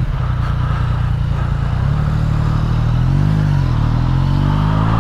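Yamaha MT-09's three-cylinder engine idling steadily, given a brief rev about three seconds in, then pulling away with a steadily rising pitch as the bike accelerates.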